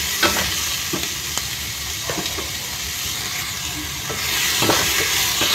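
Diced onions sizzling in hot oil in a stainless steel pot, with a wooden spatula scraping and tapping against the pot as they are stirred. The sizzle grows louder about four seconds in.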